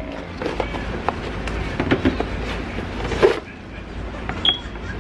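Cardboard box and packaging being handled: scattered light knocks and rustles, with a louder knock a little past the middle and a brief high squeak near the end.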